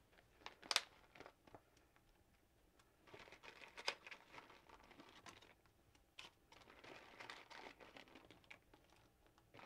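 Faint crinkling and rustling of a clear plastic package as fresh tortellini are tipped and pushed out of it into a pot of soup, with a couple of light clicks in the first second.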